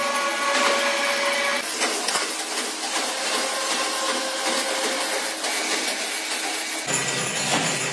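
Oil filter production machinery running: a steady motor whine over a jumble of clicks, clatter and hiss from the metal base plates being worked. The sound changes character about two seconds in and again near the end.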